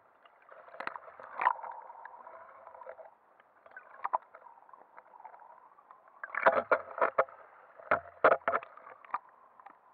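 Muffled water noise heard through an action camera's waterproof housing held underwater, with sharp knocks against the housing, a few early on and then two quick clusters in the second half.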